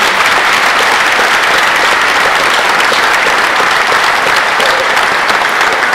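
Large audience applauding: steady, dense clapping.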